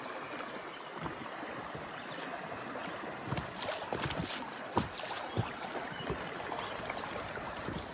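Creek water running and splashing around an inflatable kayak on the move, with a few sharper splashes about three to five and a half seconds in.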